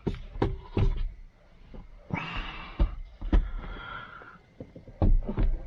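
Several light knocks and clunks, with a short swishing scrape about two seconds in: handling noise from someone moving about and reaching in at a car's front seat.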